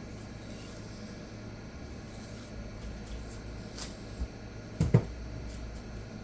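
Sharp double knock of hard objects about five seconds in, with a few lighter clicks just before it, over a low steady hum: sharpening gear being handled.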